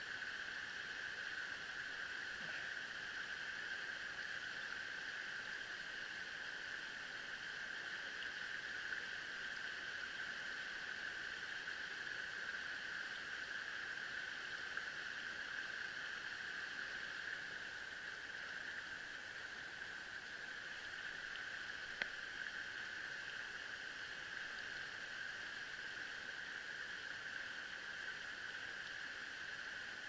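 Shallow stream water running steadily over stones in riffles, with one short click about two-thirds of the way through.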